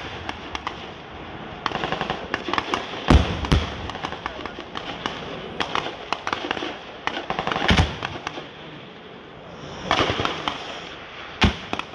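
Gunfire: rapid strings of small-arms shots, with four heavier bangs standing out, two close together about three seconds in, one near eight seconds and one near the end.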